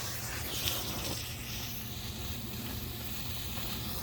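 Small smoke fireworks burning together in a pile, giving off a steady hiss.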